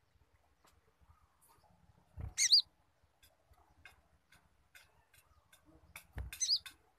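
Caged purple-throated sunbird (kolibri ninja) giving two short bursts of sharp, squirrel-like chattering calls, about two seconds in and again about six seconds in, each opening with a low thump.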